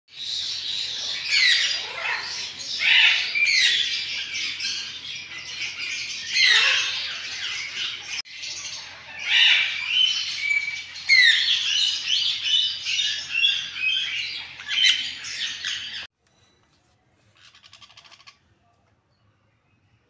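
Parrots chirping and squawking, with many overlapping shrill calls and falling whistles. The calls break off briefly about eight seconds in and stop suddenly about sixteen seconds in.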